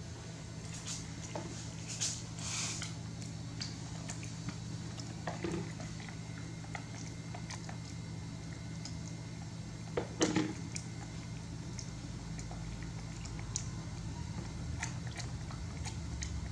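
Young macaque eating a snack from a plastic spoon: soft chewing and small wet mouth clicks, with a louder short cluster of clicks about ten seconds in, over a steady low hum.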